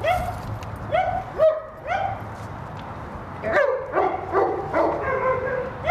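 A dog barking in short yips, four in the first two seconds, then a quicker run of barks and whining calls in the second half.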